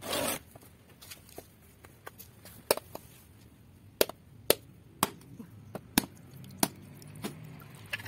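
A machete's blade knocking against a husked coconut's hard shell in a string of sharp strikes, about six loud ones spaced half a second to a second apart, with a few fainter taps after them. The strikes are cracking the shell without splitting it in two, so the coconut water can be drained. A short, loud noisy burst comes right at the start.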